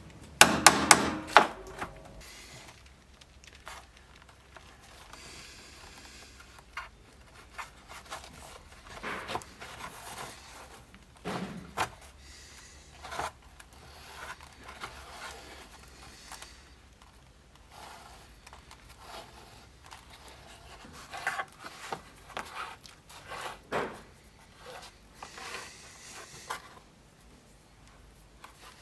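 Leather being hand-stitched: on-and-off rubbing and scraping of thread drawn through leather, with scattered small clicks. A quick cluster of loud knocks comes about a second in.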